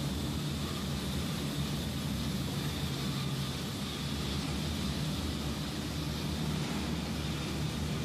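Steady drone and hiss of construction machinery running inside a rock tunnel, a low hum with a faint high whine above it, holding level without change.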